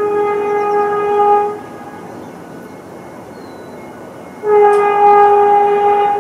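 Two long blasts of a horn at one steady pitch, each about a second and a half, the second starting about four and a half seconds in.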